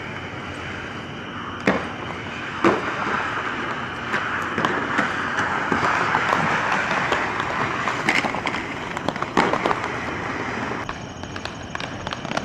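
Inline skate wheels rolling on pavement, a steady rolling noise that grows louder through the middle and fades near the end. Two sharp knocks come about two and three seconds in, and lighter clicks follow.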